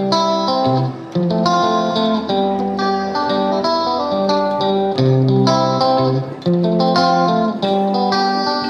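Background music led by a plucked guitar, with a bass line under the melody.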